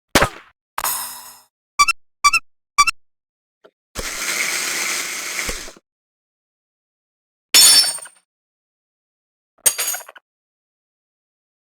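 Cartoon sound effects: a string of sharp clicks and knocks, then a rattling, ratchet-like burst lasting about a second and a half, then two bright ringing hits a couple of seconds apart.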